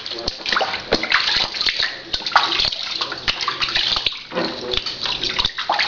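Water splashing and sloshing in a plastic baby bath as hands wash a standing baby, in quick irregular splashes.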